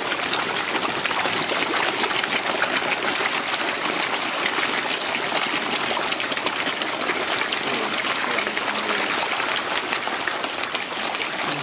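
A crowd of koi carp feeding at the pond surface, a steady mass of small splashes and slurps as they thrash and gulp at the water.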